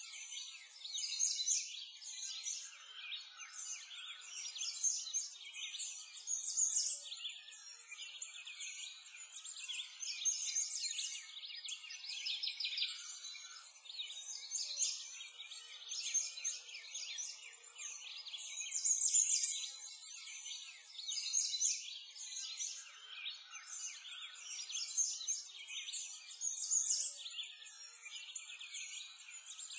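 Many songbirds chirping and twittering at once in a continuous, high-pitched chorus.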